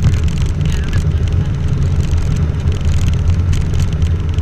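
Robin DR221's piston engine running at low power as the plane taxis on grass, heard inside the cockpit as a steady low drone.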